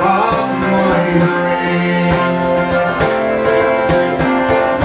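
Fiddle, concertina and a strummed mandolin-family instrument playing an instrumental passage of a slow Irish ballad together. The fiddle and squeezebox hold long notes over steady plucked chords.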